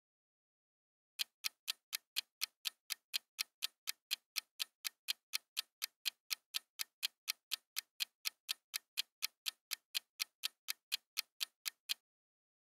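Clock-ticking sound effect counting down a quiz round's timer: even, sharp ticks about four a second. They start about a second in and stop near the end as time runs out.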